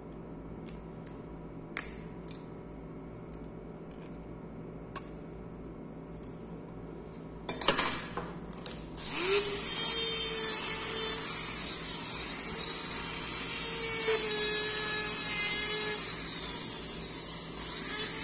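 A few faint clicks of a metal hand instrument scraping a plaster dental model, then a loud bump about halfway. A dental lab micromotor then spins up with a rising whine and grinds steadily with its bur, trimming a clear acrylic upper retainer.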